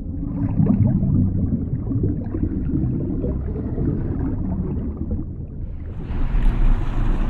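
Underwater sound effect: a low, churning rumble of moving water with bubbling, and a rushing whoosh that swells about six seconds in.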